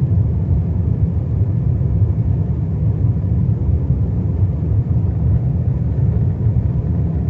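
Steady low rumble of an airliner, heard from inside the cabin.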